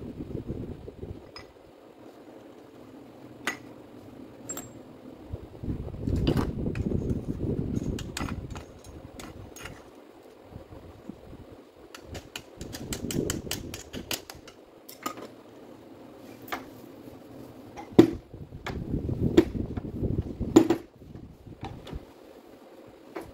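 Parts of a disassembled Makita M8700 rotary hammer drill being handled and fitted into its housing by gloved hands: scattered clicks and light knocks, with stretches of scraping and rubbing, and a couple of sharper clicks in the second half.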